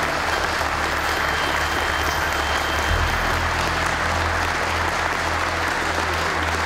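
Audience applauding steadily at the end of a lecture.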